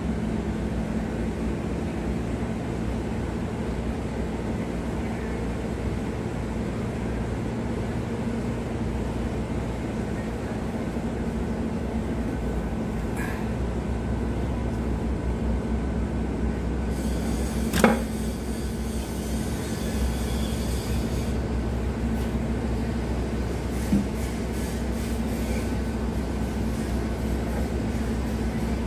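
Steady low machine hum of a workshop. About eighteen seconds in there is a sharp metallic knock, with a lighter one about six seconds later, as a steel cylinder liner is pushed by hand into the bore of a Caterpillar 3406C engine block.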